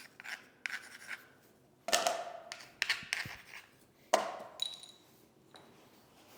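Vinyl click-flooring planks being handled and laid: several sharp clacks with scraping slides of plank against plank and floor.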